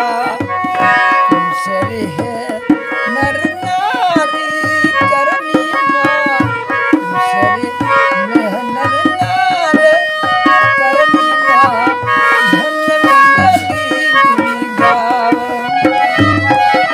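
Indian devotional music: a hand drum beating about once a second under several held melodic notes, with a few sliding ornaments.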